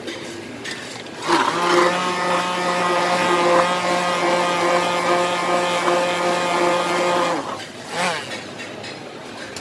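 Hand-held electric stick blender running at a steady whir in a stainless steel mug, whipping milky coffee into froth; it starts about a second in and is switched off after some six seconds.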